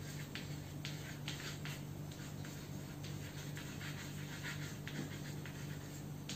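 Chalk writing on a blackboard: short scratchy strokes in irregular runs as words are written out, over a steady low hum.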